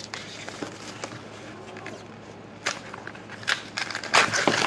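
Clear plastic tape being handled and pulled, crinkling and crackling, with sharp rasps about two thirds of the way in and the loudest, longest rip near the end.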